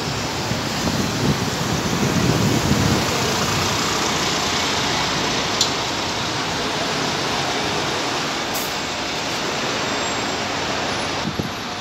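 Double-decker bus's diesel engine running as the bus pulls away and drives off, a steady rumble under even traffic noise, heaviest in the first three seconds.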